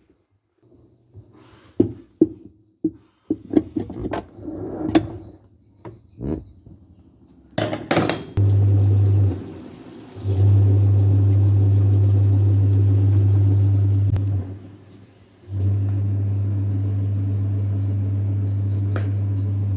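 Several clicks and knocks, then an LG washing machine's wash motor running in spells of a few seconds with short pauses between, a steady low hum.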